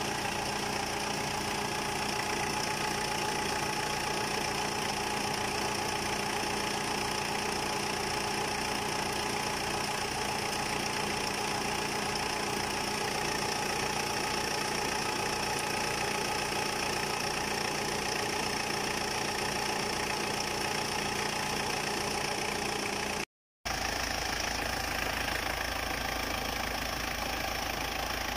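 Mitsubishi 4M40 2.8-litre four-cylinder turbo-diesel idling steadily with an even low pulse. It cuts out for a moment near the end and picks up again with a slightly different tone, as a second recording of the same engine idling begins.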